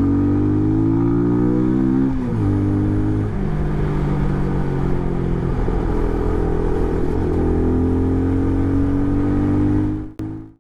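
Benelli TRK 251's single-cylinder engine and exhaust under way and loud. The note climbs in pitch, drops sharply at a gear change about two seconds in, holds fairly steady, then climbs again before cutting off suddenly near the end.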